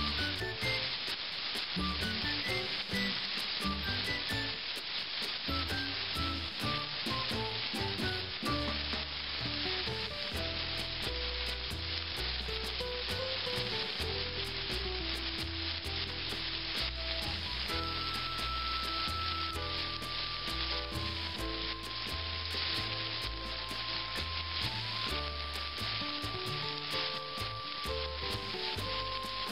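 Chicken breasts frying in oil in a skillet: a steady, dense sizzle.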